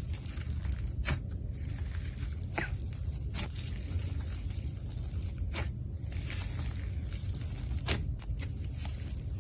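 Slime being handled by hand, pressed and stretched, with a sharp click or pop every second or two.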